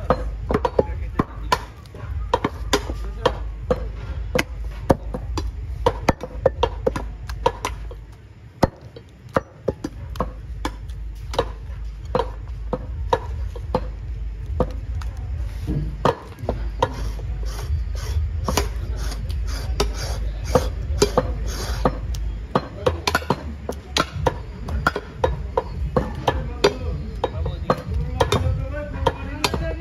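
Heavy butcher's cleaver chopping beef and bone on a wooden log chopping block: repeated sharp chops, about two to three a second, with a short pause about eight seconds in.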